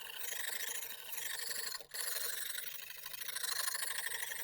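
Lansky 120-grit sharpening stone rasping in repeated strokes along a kitchen knife's edge, with a short break a little under two seconds in.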